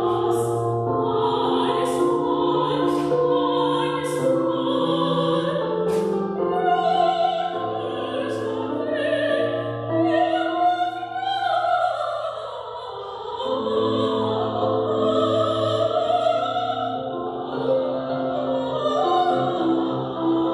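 A woman singing in operatic style, with sustained, wavering notes, accompanied by an electric keyboard with a piano sound. The accompaniment drops away briefly around the middle while the voice glides on alone.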